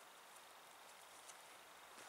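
Near silence: faint outdoor background hiss with a very faint steady high tone and a few faint ticks.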